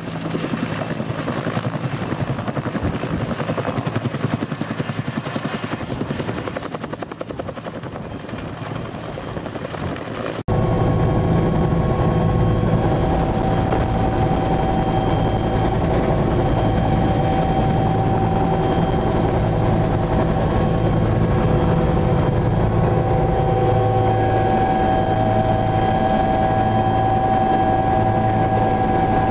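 Bell 205 (Huey) helicopter lifting a slung Astar on a longline, first heard from the ground as a dense rotor and turbine noise. About ten seconds in, the sound cuts sharply to the louder, steady turbine whine and low rotor throb inside the 205's cabin in flight.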